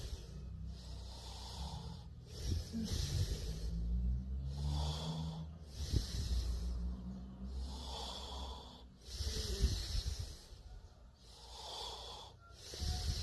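A sleeping person snoring: a low rumble with hissing breaths in and out, one after another about every second and a half.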